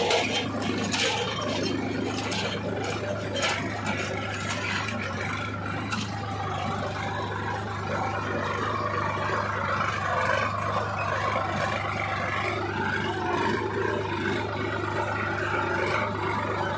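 Small diesel farm tractor running steadily under load as it pulls a cultivator through soil, with the implement's metal frame rattling and scraping and a few sharp clanks in the first few seconds.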